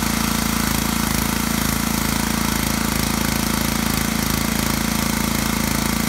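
Pressure washer's small gas engine running steadily just after starting, with the wand trigger held open so the pump runs without building pressure.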